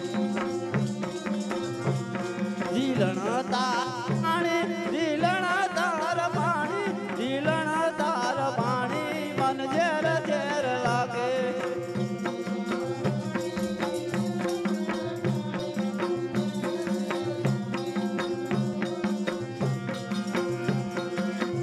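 Live Gujarati folk music: a steady tabla beat over held drone notes, with a wavering melodic line riding on top for several seconds in the first half.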